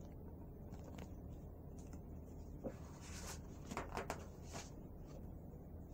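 Faint rustling of paper as the pages of a picture book are turned, a few soft swishes about three to four and a half seconds in.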